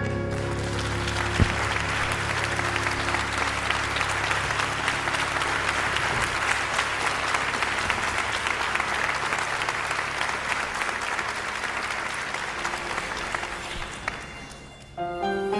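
A church congregation applauding steadily, with the last sustained keyboard chord fading under it at the start. The applause dies away about fourteen seconds in, and soft piano music begins just before the end.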